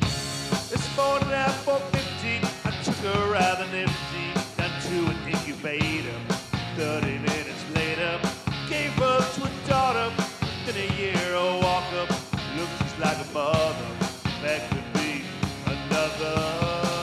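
Rock band music: a drum kit keeps a steady beat under a melodic lead line that bends in pitch.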